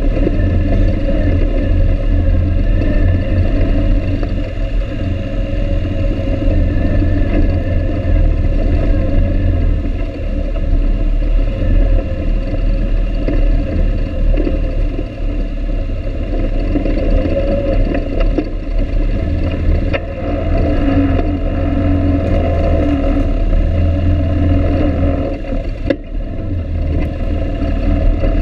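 ATV engine running steadily as the quad rides over a rough, rocky dirt trail, with a couple of sharp knocks from the bumps.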